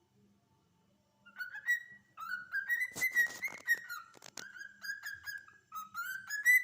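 Cockatiel whistling a string of short, clear notes, many sliding upward in pitch, starting about a second in. A few scratchy clicks come in the middle.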